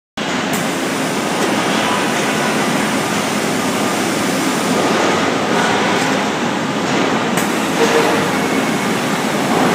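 Steady industrial din of a robotic welding cell's shop floor, starting abruptly and holding level, with a few faint clicks partway through.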